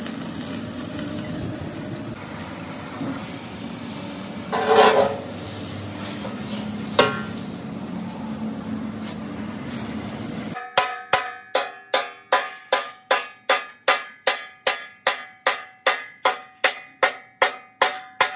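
Busy metal-workshop background noise with a brief loud tone about five seconds in. Then, after a sudden cut, a fast, even run of ringing metallic strikes, about two and a half a second.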